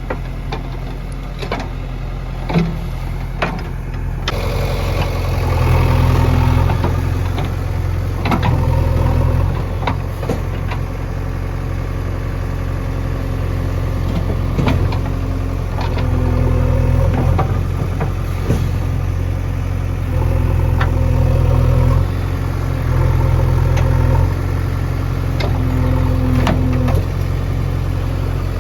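JCB 3DX backhoe loader's diesel engine running, rising in loudness for a few seconds at a time as the hydraulics take load while digging, with occasional sharp metallic clanks from the bucket and digging arm.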